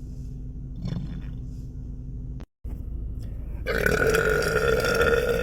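A man's long, steady belch, lasting nearly three seconds, beginning about three and a half seconds in after a brief cut to silence.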